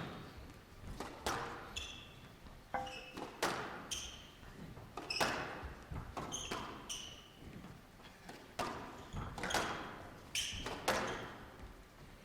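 Squash rally: a squash ball is struck by rackets and hits the walls roughly once a second, each hit echoing in a large hall. Short shoe squeaks on the court floor come between the strokes.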